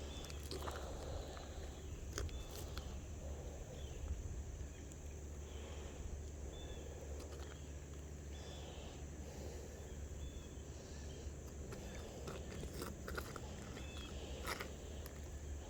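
Faint crunching and scraping with scattered sharp clicks, over a steady low rumble, with short high chirps now and then.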